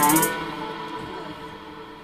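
Trap beat playing back from the music software stops about a third of a second in, on a pitched note that slides down. A faint fading tail follows.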